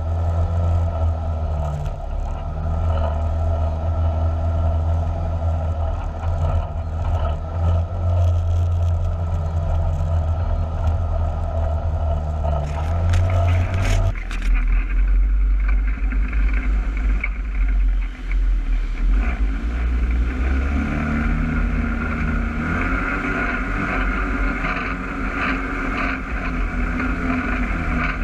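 Side-by-side UTV engine running while driving a dirt trail, heard from onboard as a steady low drone. About halfway through the sound changes abruptly to a deeper rumble with a higher whine over it.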